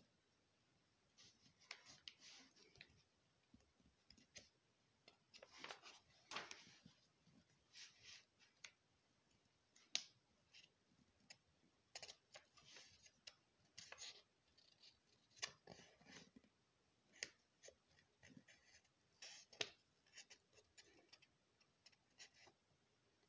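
Faint, irregular crisp rustles and clicks of paper being handled.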